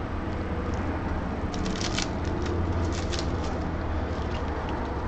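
Packaging and parts being handled: soft rustling and crackling clicks, bunched mostly between about one and a half and three and a half seconds in, over a steady low hum.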